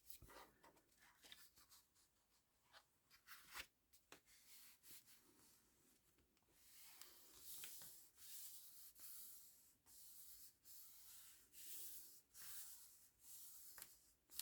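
Faint rubbing and rustling of paper and card being handled and pressed down, with a few light taps in the first half and repeated rubbing strokes from about halfway through.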